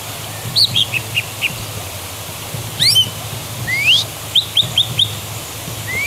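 Greater green leafbird calling: a falling note, then a run of quick chirps, followed by several sharply rising whistles and a rapid string of four short notes, over a steady low hum.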